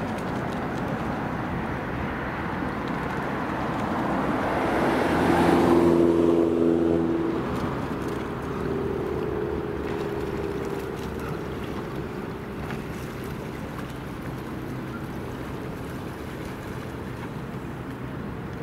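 Motorboat engine passing, rising to its loudest about six seconds in and then fading, over steady wind and water noise.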